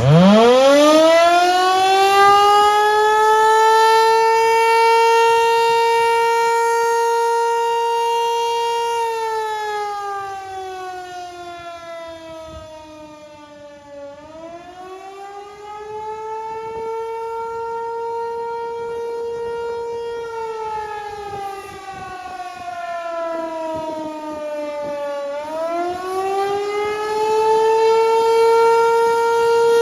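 American Signal T-128 civil defense siren sounding a test. It winds up fast to a steady high pitch and holds it, then sounds a wail: the pitch sinks over about five seconds, climbs back and holds, sinks again, and climbs again near the end.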